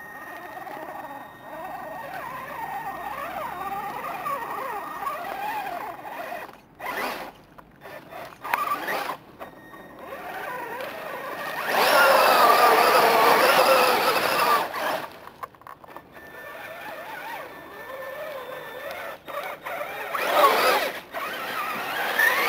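Traxxas E-Maxx electric RC monster trucks driving through swamp mud and water: the electric motors whine, rising and falling with the throttle, with a few short breaks near the middle. The loudest stretch, starting about twelve seconds in and lasting about three seconds, is a truck splashing hard through water.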